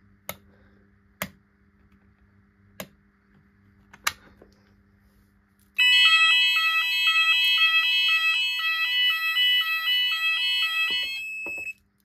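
A few sharp clicks as the Gent call point is pressed, then about six seconds in the conventional fire alarm sounders go off together. They give a loud warble of several tones alternating about two to three times a second, and cut off suddenly near the end as the panel is silenced.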